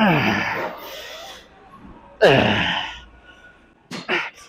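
A man grunting with strain twice, about two seconds apart, each grunt falling in pitch and trailing into a hard exhale, as he pushes through a heavy set of leg extensions; a few short, sharp breaths near the end.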